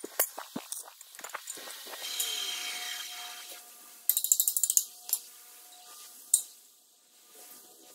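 Sharp clicks and knocks of steel square tubing being handled, then a short, rapid crackling burst about four seconds in, typical of a MIG welder tack-welding the steel frame, and one more sharp click a little later.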